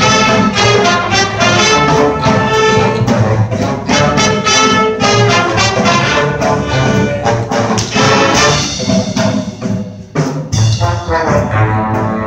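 Big band jazz ensemble playing, led by its trumpets and trombones, with saxophones, piano, guitar and upright bass. The band drops out for a moment about ten seconds in, then comes back in full.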